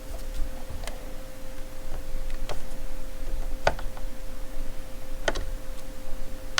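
A few separate light clicks and taps as the cordless impact wrench and its metal belt clip are handled and the clip is fitted. A faint steady hum runs underneath.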